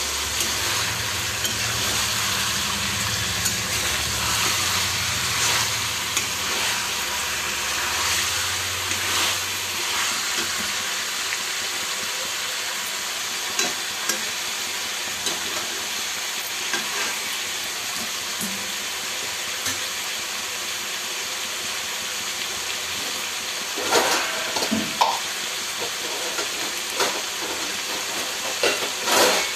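Chicken pieces frying with a steady sizzle in an iron kadai, being stirred with a spatula that scrapes and clicks against the pan, mostly in the first ten seconds. A few louder knocks of the spatula on the pan near the end.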